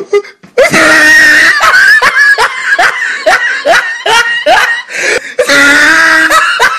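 Loud, high-pitched laughter: a rapid run of short 'ha' syllables, about three a second, then a longer held cry near the end.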